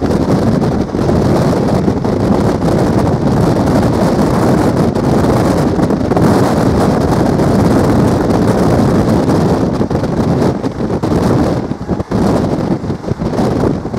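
Wind buffeting the microphone of a moving passenger train, over the train's steady running noise. The noise dips briefly a few times near the end.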